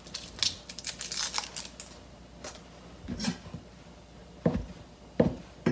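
Kitchen knife cutting imitation crab sticks on a plastic cutting board: scattered light taps and clicks, then two firmer knocks of the blade on the board near the end.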